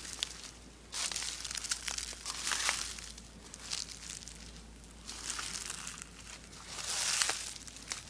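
Dry rustling and crinkling in irregular bursts of about a second each, with a few sharp clicks among them.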